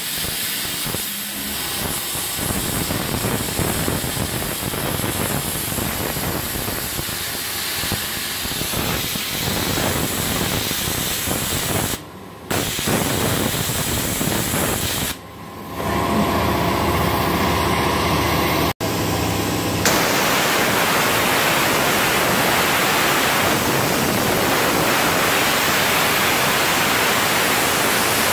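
Steady hiss of compressed air and abrasive media blasting from a handheld spot sandblaster, stripping rust from bare roof metal. It breaks off briefly twice around the middle.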